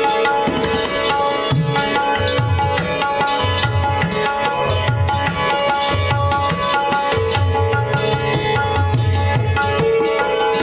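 Indian classical instrumental music: a string instrument playing quick runs of notes over a drone, with tabla keeping a rhythm in the low drum.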